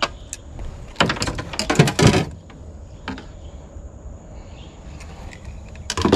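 Handling noises: a quick clatter of sharp clicks and knocks about a second in, a single knock near the middle, and another clatter near the end, over a faint steady high whine.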